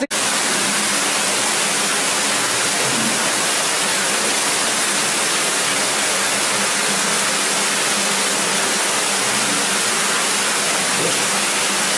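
Steady loud rush of water from an underground river in a limestone cave, an even roar that does not change in level.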